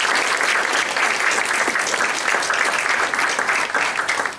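Audience applause after a talk: many people clapping steadily, dying away quickly near the end.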